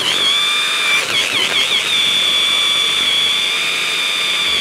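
Hand blender with a chopper bowl attachment running at speed, grinding raw hake, milk and cream cheese into a fine paste. It gives a steady high whine whose pitch wavers briefly about a second in, as the load shifts, then holds steady.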